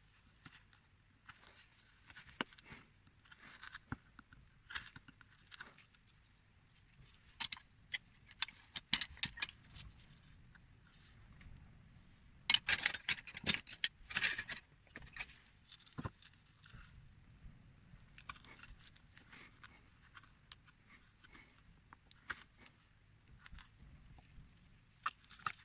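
Small hand carving tool scraping and cutting at a little carved figure, in short irregular strokes and clicks, with a denser, louder run of scraping about halfway through.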